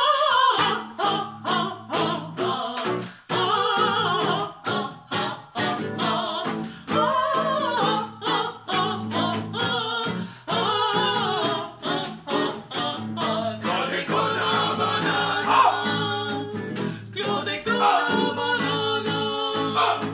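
Voices singing a wordless "ah ah ah ah" refrain over a strummed acoustic guitar.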